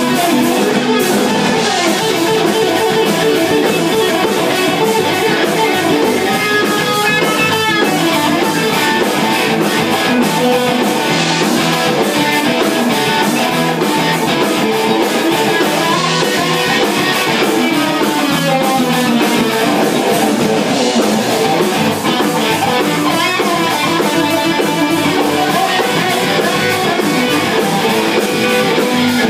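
Live jam-session music led by guitar, playing continuously, with a few quick sliding notes about seven seconds in.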